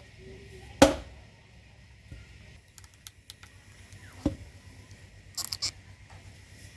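Firewood being chopped by hand: two sharp strikes into wood about three and a half seconds apart, the first the loudest, followed near the end by a quick cluster of light clicks.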